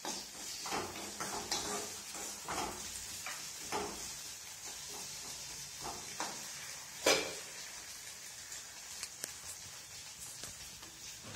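Potato pieces sizzling as they fry in a black kadai, with a steady high hiss. A spatula stirs and scrapes against the pan about once a second for the first seven seconds, loudest at a single scrape about seven seconds in, then only light stirring.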